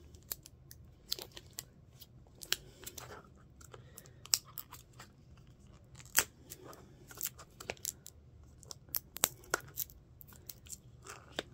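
Fingers and fingernails picking and prying at a hard plastic mystery-ornament case, giving scattered sharp clicks, taps and small scrapes as the lid resists being opened. The strongest clicks come about six seconds in and near the end.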